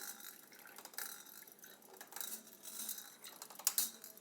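Water splashing and dripping in a small tub, with a few sharp clinks of small hard objects.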